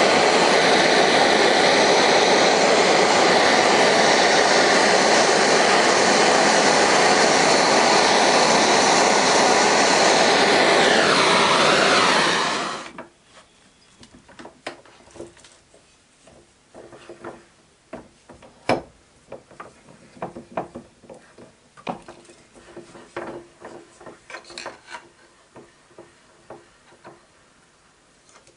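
Gas blowtorch flame roaring steadily against a copper boiler shell, sweeping down in pitch shortly before it cuts off abruptly about 13 seconds in. After that, faint scattered clicks and scraping of a hand tool working a steel disc held in a lathe chuck.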